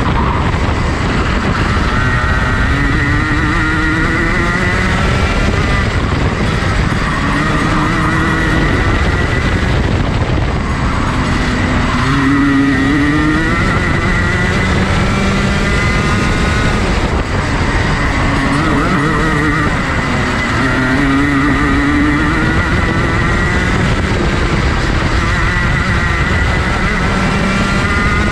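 Junior Rotax kart's 125cc single-cylinder two-stroke engine, heard from on board, revving up and down lap after lap. The pitch climbs along each straight and falls away into the corners, several times over.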